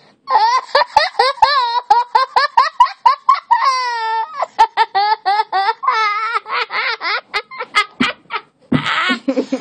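A young boy laughing hysterically: a long run of high-pitched, rapid laughs, several a second, turning breathier and more ragged in the last few seconds.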